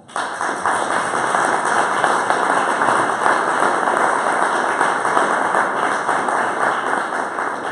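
Audience applauding: dense clapping that starts suddenly and begins to die down near the end.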